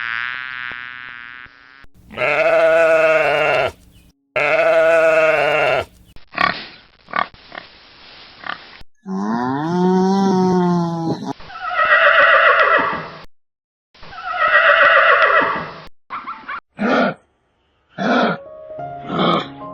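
Animal calls played as a series of separate clips cut one after another. Two matching calls come about two seconds in, then a call that rises and falls in pitch, then two more matching calls, and short sharp calls near the end.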